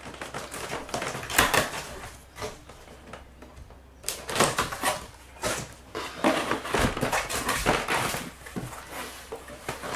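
Knife slitting packing tape along a cardboard box, then tape tearing and cardboard flaps scraping and rustling as the box is pulled open. A quieter pause about two seconds in, then a busier stretch of scratchy handling from about four seconds on.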